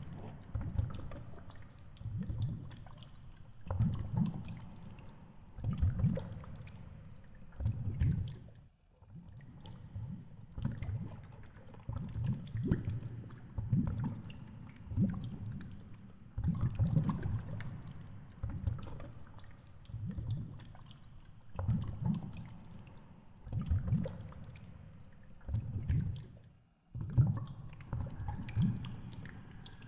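Underwater water noise on a camera housing hung on a fishing line: low rumbling whooshes that swell and fade about every two seconds as the rig sways.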